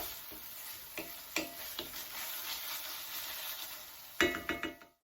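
Tomato paste, garlic and shallot sizzling in a frying pan while being stirred, with a few light clicks of the utensil against the pan. About four seconds in comes a louder, ringing clatter of the utensil on the pan, and then the sound cuts off abruptly.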